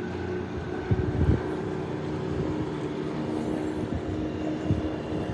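A steady engine drone, with a couple of low bumps about a second in and again near the end.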